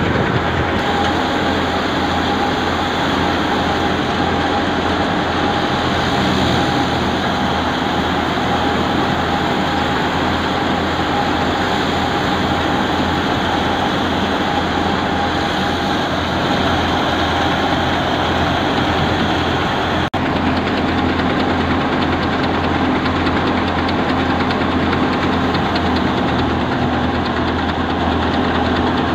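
Belt-driven threshing machine running steadily under an engine's drone as mustard plants are fed into it to separate the seed. A brief break comes about two-thirds of the way through, after which the steady hum continues at a lower pitch.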